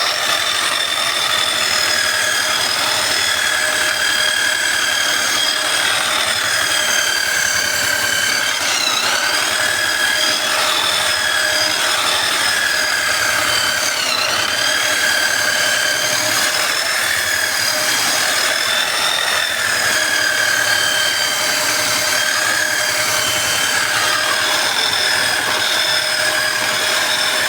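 High-speed handheld power tool working a warped wooden frame: a steady motor whine that dips briefly in pitch twice as the tool bogs under load against the wood.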